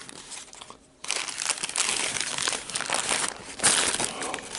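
Paper sandwich wrapper crinkling as it is unfolded by hand, starting about a second in.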